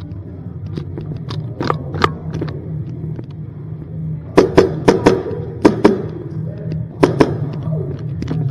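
Airsoft shots and BB hits in a CQB arena: a quick string of sharp cracks a little past halfway, then two more about a second and a half later, with fainter clicks earlier on. Under them runs a steady low rumble.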